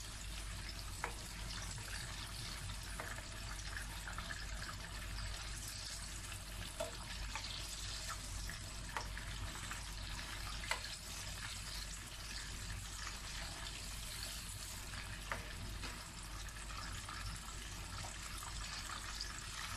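Chicken thighs and legs sizzling steadily as they pan-fry to brown in a non-stick frying pan, with a few light clicks of a spoon against the pan.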